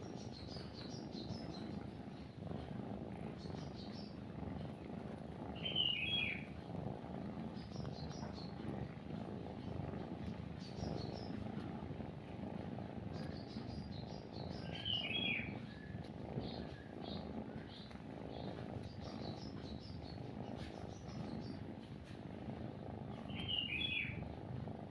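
Kitten purring steadily while nursing, with birds singing over it: one louder call about every nine seconds, three times in all, and faint high chirps throughout.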